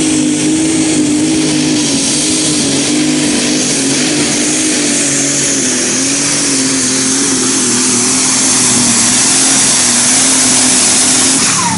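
Superstock pulling tractor's turbocharged diesel engine running flat out under heavy load while it drags the weight sled, a loud steady engine note with slight wavering under a strong high hiss. Near the end the pitch drops as the engine backs off at the end of the pull.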